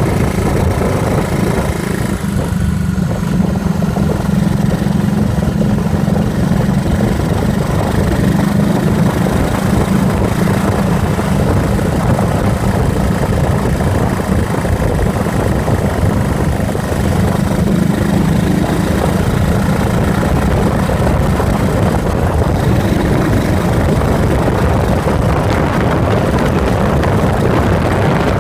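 Yamaha SRX400's air-cooled single-cylinder four-stroke engine running while the motorcycle is ridden, heard close up from beside the fuel tank. Wind rushes over the microphone, and the wind noise grows near the end.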